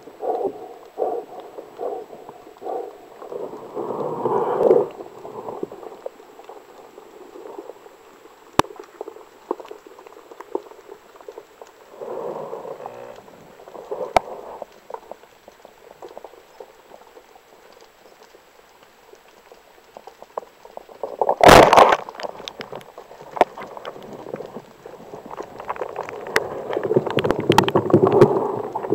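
Muffled underwater water noise around a diver, with one loud sharp crack about three-quarters of the way through: a speargun firing at an amberjack. Heavier water churning follows near the end, as the speared fish pulls on the line.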